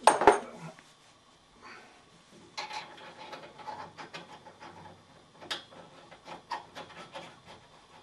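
Metal clanking and clicking as a combi boiler's filling loop is unscrewed from the pipework and its connections are capped off. One sharp clank comes at the start, then a run of clicks and scraping of metal fittings through the middle.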